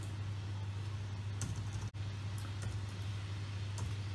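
A few sparse computer keyboard key presses, sharp separate clicks, over a steady low hum.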